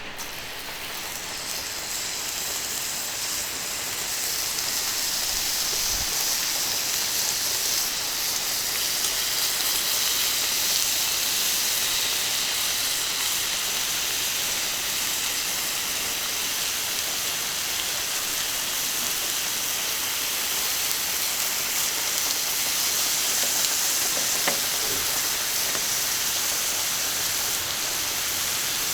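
Skirt steak sizzling on a hot iron griddle: a steady frying hiss that builds over the first few seconds and then holds.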